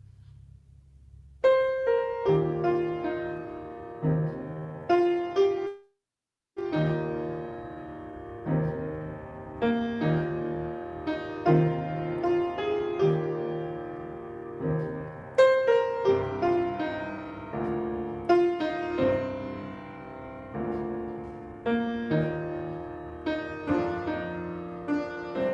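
Solo piano playing a slow introduction of single notes and chords, starting about a second and a half in. The sound cuts out completely for about half a second near six seconds, then the piano carries on.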